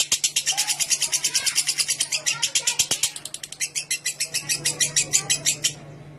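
Lovebird singing its long 'ngekek' chatter: a fast, even run of sharp, high notes, about ten a second, that falters briefly a little past halfway and stops near the end.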